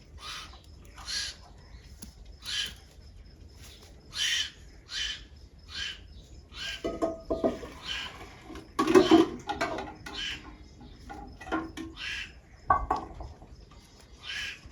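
Wild birds calling at a feeder: a run of short, repeated chirps, with a louder burst of lower, harsher calls about halfway through.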